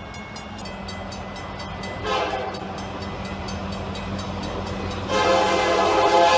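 Union Pacific diesel freight locomotive blowing its air horn as it approaches a grade crossing: a short blast about two seconds in, then a long, louder blast from about five seconds in, a chord of several notes, over the steady hum of the locomotive.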